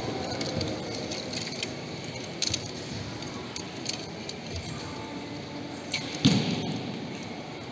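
Bows being shot at an indoor archery range: a few sharp release snaps, the loudest a thump about six seconds in, over the steady background noise of a large sports hall.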